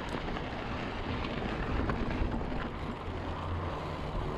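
Mountain bike rolling over a dry dirt and gravel fire road: a steady rough noise of knobby tyres on the trail and wind on the microphone.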